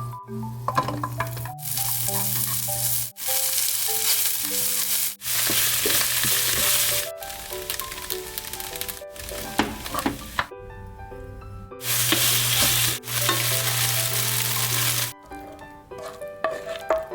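Food sizzling in hot oil in a frying pan, in several short stretches that start and stop abruptly, with light background music underneath.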